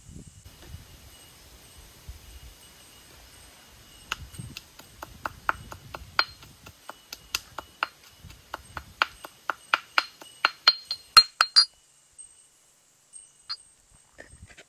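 Metal pestle pounding in a small metal mortar: a run of sharp, ringing clinks, about three a second, starting about four seconds in, growing louder and stopping about twelve seconds in.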